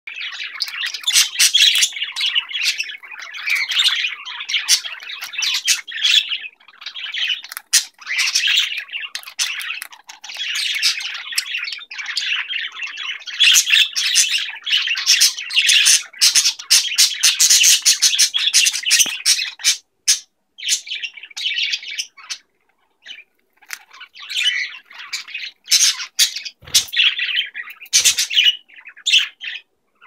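Budgerigars chattering and warbling: a busy stream of chirps, squawks and clicks that thins to a few short calls for a couple of seconds past the middle, then picks up again. Two dull knocks come near the end.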